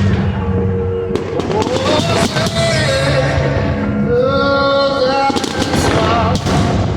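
Fireworks going off in sharp bangs and crackles over music: a few bangs about a second in and a dense volley near the end.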